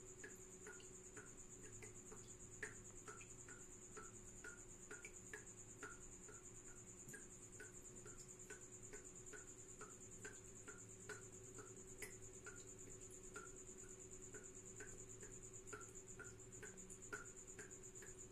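Faint, steady high-pitched cricket trill, with soft ticks two or three times a second and a low hum underneath.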